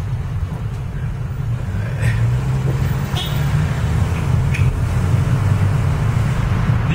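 Car engine and road noise heard from inside the cabin while driving: a steady low hum with a few faint ticks.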